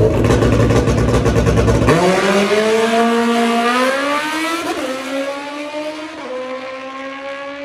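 Suzuki Hayabusa drag bike launching off the line. A loud, rough blast at the start gives way to engine revs climbing in pitch, dropping twice at gear changes, and fading as the bike pulls away down the strip.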